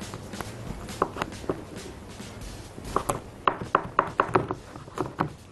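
Kitchen knife cutting through a raw chicken's ribs along the backbone on a wooden cutting board: a few sharp cracks about a second in, then a dense run of cracks and knocks in the second half.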